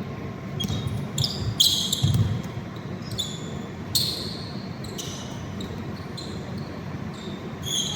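Basketball game in play on an indoor court: the ball bouncing, with repeated short high squeaks scattered through it.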